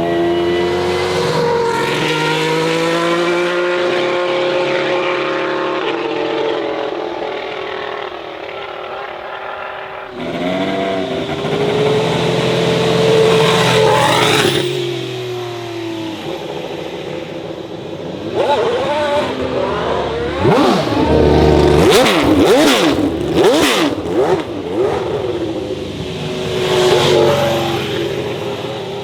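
2018 Ferrari SF71H Formula 1 car's 1.6-litre turbocharged V6 running at high revs, its pitch rising and falling as it accelerates. In the second half the revs swing rapidly up and down, again and again, and this is the loudest stretch.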